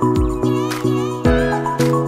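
Background music with a steady beat and pitched instrumental notes.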